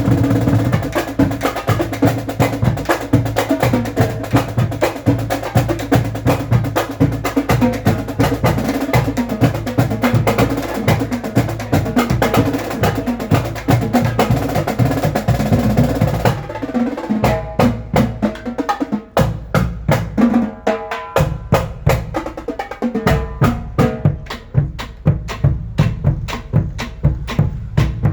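Music with a steady, driving drum beat. About two-thirds of the way through the mix thins out and the bass drops away for a few seconds at a time before the full beat returns.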